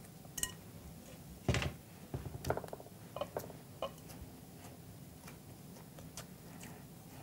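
Faint taps and scrapes of a silicone spatula against a glass baking dish as sticky dough is pressed down into it: a handful of short knocks, the loudest about a second and a half in.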